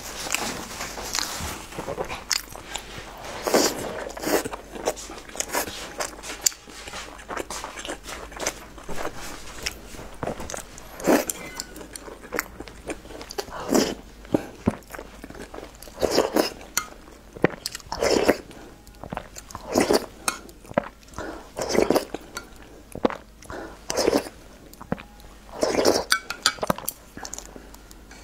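Close-miked eating sounds: wet chewing and slurping of soft dumplings and chili-oil sauce, coming in loud bursts every second or two.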